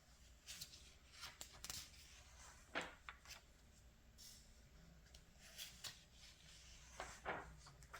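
Faint magazine pages being turned by hand: a run of short paper rustles and swishes, several over a few seconds.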